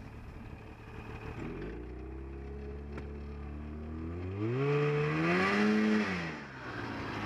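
Polaris snowmobile engine running low and steady, then revving up about four seconds in as the sled pulls away, its pitch rising steeply, before it eases off and drops in pitch near the end.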